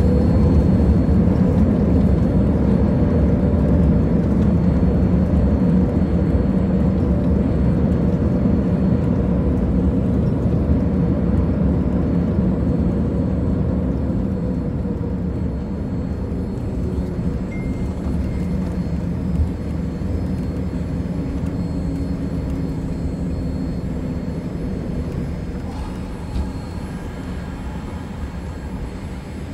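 Cabin noise of a Boeing 787 decelerating along the runway just after touchdown: a loud, steady low rumble of engines and wheels that slowly dies down as the airliner slows.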